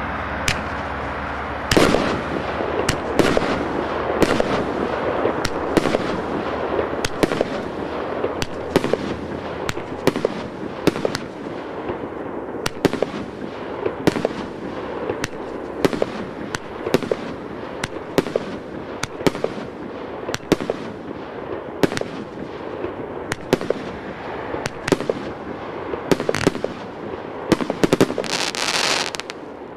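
A 25-shot, 30-calibre firework cake (SB 25-02) firing shot after shot: sharp reports come about one to two a second over a continuous hiss and crackle, changing effects as it goes. A louder hissing burst comes near the end.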